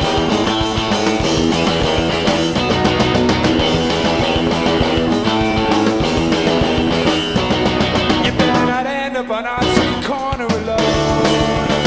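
Live indie rock band playing, electric guitars over bass and drums. About three seconds before the end the bass and drums briefly drop away, leaving a wavering, bending high part before the full band comes back.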